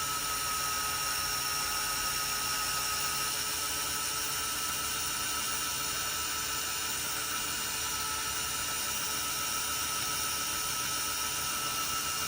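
Small electric drill with a 9/64 bit running steadily as it drills out the rivet on a diecast toy car's base, a continuous high whine.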